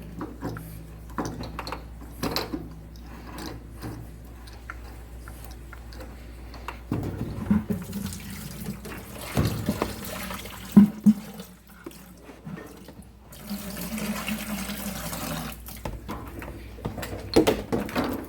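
Water running from an open port on a water heater in two stretches, among clinks and knocks of metal fittings and tools being handled.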